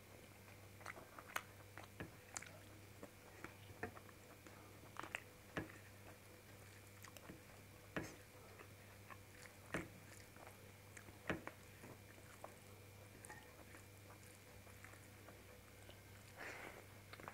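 Close mouth sounds of a person eating rice and shahi paneer by hand: soft chewing with scattered sharp lip-smacking clicks over a faint steady hum, the clicks thinning out in the second half and bunching again near the end.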